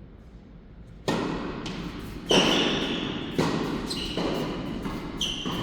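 A tennis ball being hit back and forth in a rally on an indoor court. Sharp racket-and-bounce impacts come about a second apart, each followed by a short echo.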